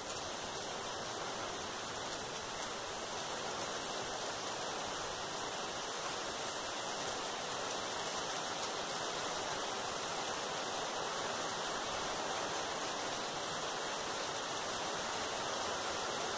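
Steady, even hiss with no separate strokes or clicks, unchanging in level.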